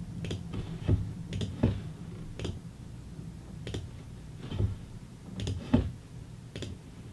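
Computer mouse clicking about ten times at irregular intervals, short sharp clicks as menu items are selected, over a faint low hum.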